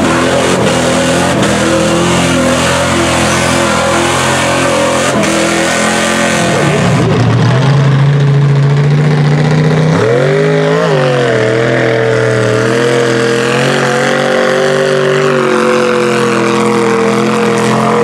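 Lifted mud trucks' big engines revving hard while ploughing through a flooded mud pit, the pitch rising and falling with the throttle. There is a sharp rev up and back down about ten seconds in.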